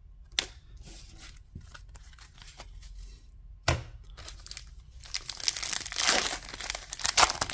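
A trading card pack wrapper crinkling and tearing open in the hands, busiest over the last two and a half seconds. Scattered light clicks come first, and a single knock about halfway through.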